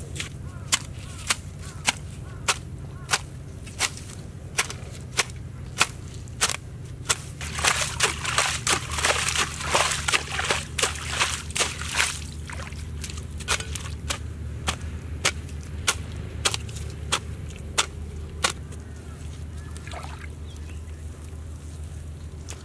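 Hands slapping and splashing muddy water in a small hole: sharp wet slaps about every half second, with a busier stretch of sloshing and splashing in the middle, stopping a few seconds before the end.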